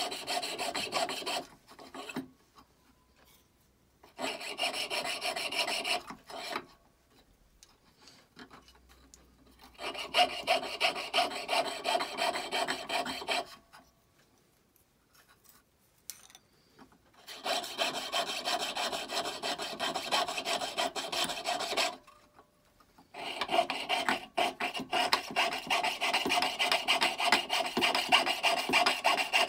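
Jeweler's saw cutting through a metal fork: fast, even rasping strokes of the fine blade in several spells of a few seconds each, with short pauses between them as the blade is turned along the outline.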